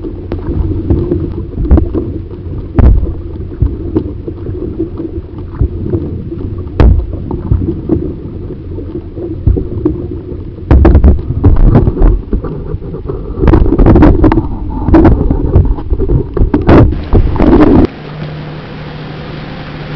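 Kayak being paddled on open water: wind buffets the microphone in loud, uneven gusts, water splashes, and irregular knocks come from the paddle strokes. About 18 seconds in it drops abruptly to a quieter, steadier hiss with a low hum.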